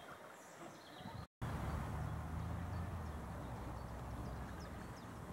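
Faint open-air ambience with a low steady rumble and a few faint high bird chirps; the sound drops out for a moment about a second in.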